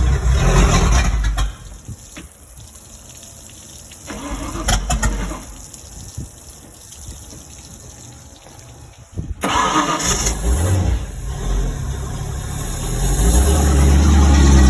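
Boat engine being cranked in bursts with pauses between, then catching and running steadily near the end.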